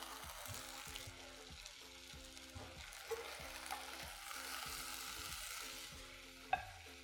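Rice softly sizzling as it fries in ghee in a saucepan, stirred with wooden spoons, with a light click near the end.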